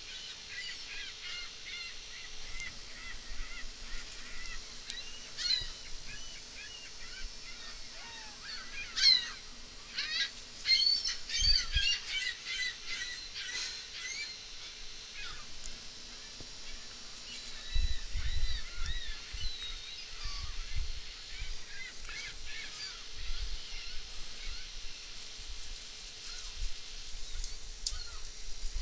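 A flock of gulls calling with many short, overlapping squawks, busiest from about nine to fourteen seconds in. Low rumbling thumps come in during the second half.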